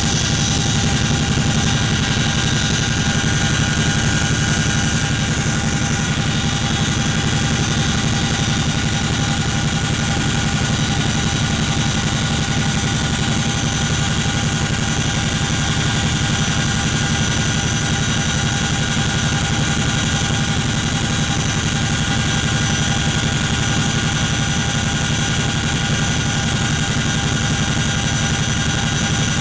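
Cabin noise of a CH-47 Chinook helicopter in flight: its twin turboshaft engines, rotors and transmission make a loud, steady drone with several steady high whines over it.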